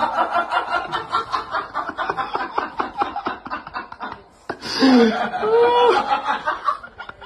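A person laughing: quick, rapid snickering for about four seconds, then after a brief pause a louder, drawn-out laugh with the pitch sliding up and down.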